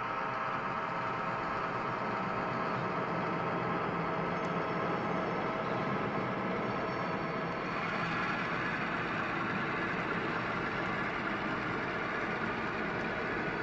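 Sound-equipped HO scale model diesel locomotive running steadily through its onboard speaker as it pulls two empty boxcars, its engine tone shifting slightly a little past halfway.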